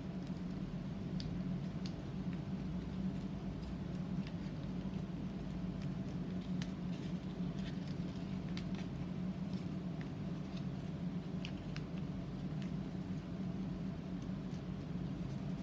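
A sheet of origami paper being folded and creased by hand, giving faint, irregular crinkles and ticks, over a steady low hum.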